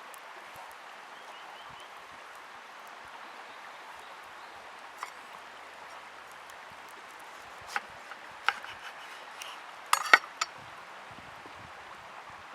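A few sharp metallic clinks of cooking utensils against pans or dishes: one about five seconds in, then a cluster near the end, the loudest about ten seconds in. They sit over a steady outdoor hiss.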